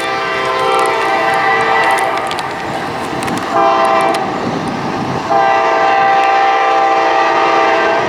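Train horn sounding a chord of several steady tones: a long blast, a short blast about three and a half seconds in, then another long blast that holds on.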